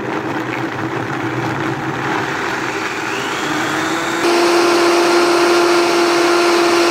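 Vitamix blender motor running at speed, chopping baby carrots, spinach and frozen berries in juice. Its pitch rises about three seconds in. About four seconds in it gets louder and steadier as the contents turn into a smooth purée.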